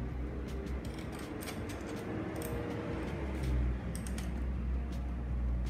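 Irregular small clicks, taps and light scraping as a plastic and metal battery base plate is handled and screwed down onto an electric bike's frame.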